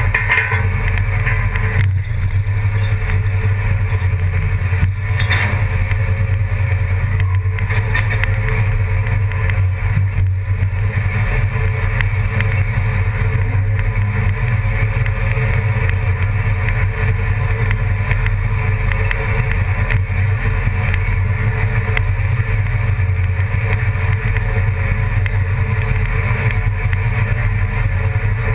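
An engine running steadily with a constant low drone and no change in speed.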